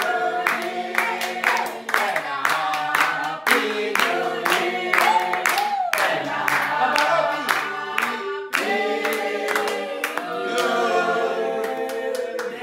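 A small group of voices singing a song together, unaccompanied, with hands clapping in time.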